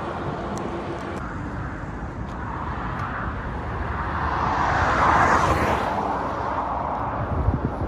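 Highway traffic heard from a moving bicycle: steady wind rumble on the microphone, with a motor vehicle passing that swells and fades about five seconds in.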